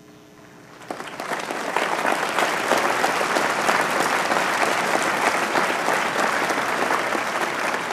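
A large audience applauding: the clapping starts abruptly about a second in, quickly builds to a dense, steady applause and eases slightly near the end.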